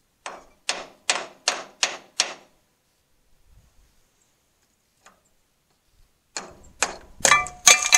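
Hammer knocking on the cast-iron hydraulic filter cover plate of a Farmall 560 tractor to break it free of its gasket. A quick run of about six sharp knocks comes first, then a pause, then four louder knocks near the end that ring like metal.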